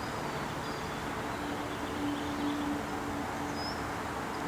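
Outdoor ambience: a steady background hiss with a faint low hum for a second or two in the middle, and a few faint, high bird chirps.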